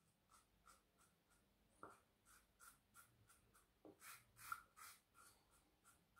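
Mühle R41 double-edge safety razor scraping stubble through lather on the upper lip in faint, short strokes, about three a second.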